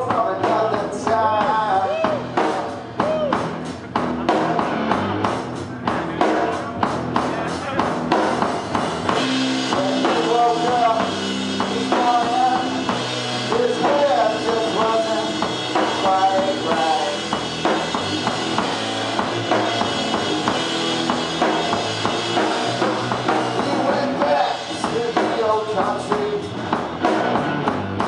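Live rock duo playing: an overdriven electric guitar through an amp with bending, sliding lines over a steadily beaten drum kit.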